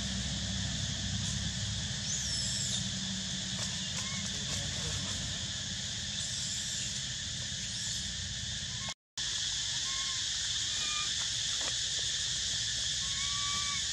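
Steady insect drone with a low rumble beneath it, and short whistle-like calls now and then. The sound cuts out for a moment about nine seconds in.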